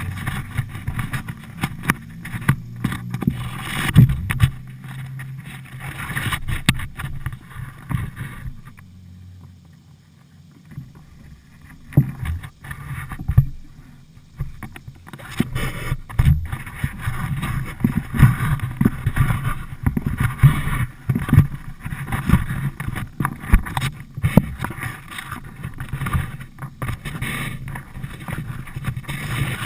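Kayak on a flood-swollen river: water rushing and splashing against the boat, in irregular surges with a quieter stretch about a third of the way in.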